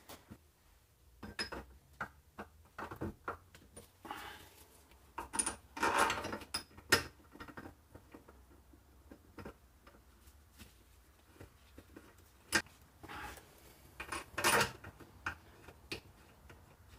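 Metal parts clinking and knocking as a differential carrier with its ring gear is handled and seated in the housing of a Toyota 8-inch E-locker. Light clicks come scattered throughout, with a few louder knocks in between.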